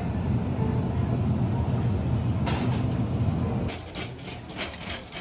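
Shopping cart being pushed across a store floor: a steady low rolling rumble, which gives way near the end to a run of rattling clicks from the wire basket and wheels on the tiles.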